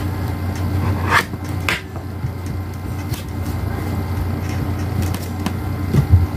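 A steady low hum, such as a room appliance or fan makes, with a few soft taps and rubs as hands roll and press playdough on a plastic tabletop.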